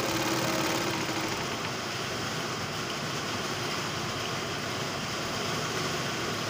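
Overlock (serger) sewing machine running steadily at speed, freshly oiled after a jam caused by thread caught in its mechanism, and running with less noise.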